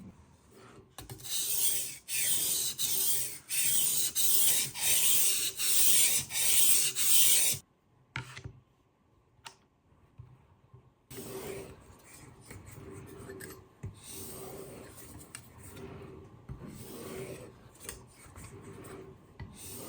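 Knife edge drawn back and forth across a sharpening stone on a guided sharpener, a rhythmic rasping of steel on stone at about one stroke a second. The strokes are loud at first, stop for a few seconds, then resume softer and lighter.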